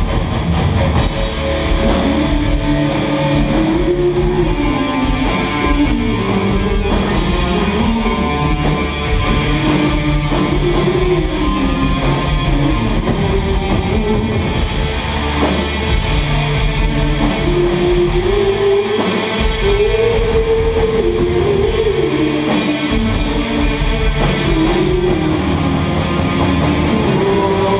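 Heavy metal band playing live at full volume: distorted electric guitars, bass and drum kit.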